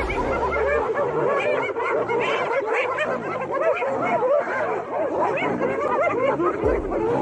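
Many spotted hyenas giggling at once: a loud, dense chorus of short, overlapping rising-and-falling calls, the excited giggling of a clan mobbing a lion.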